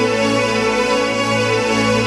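Electronic keyboard on a chamber-strings voice playing sustained chords in D minor, with no rhythm accompaniment.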